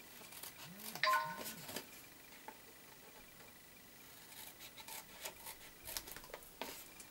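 Scissors snipping through cardstock: a run of short, sharp snips in the second half. About a second in comes a brief ringing tone with a few pitched lines.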